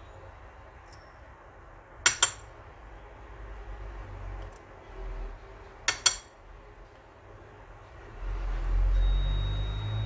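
Metal spatula clinking against a glass petri dish while picking up ferrous sulfate crystals: two quick double taps with a short ring, about two and six seconds in. A low rumble builds near the end.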